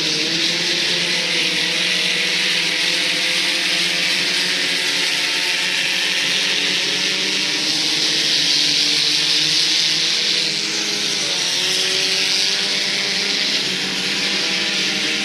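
Several sport compact race cars running at speed, their four-cylinder engines droning in overlapping pitches that rise and fall as they pass, over a steady hiss that swells about eight seconds in.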